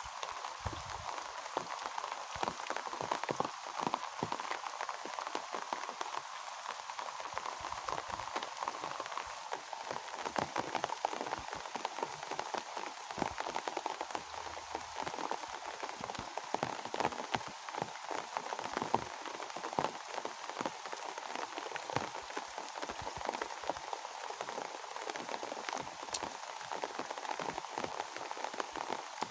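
Steady rain falling, with many individual drop hits.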